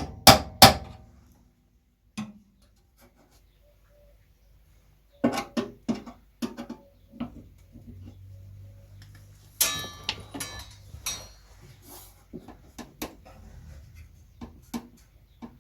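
Sheet-steel repair pieces and hand tools being worked by hand: sharp metallic knocks and clanks at the start, then scattered taps, with a brief scraping, ringing metal rattle about ten seconds in.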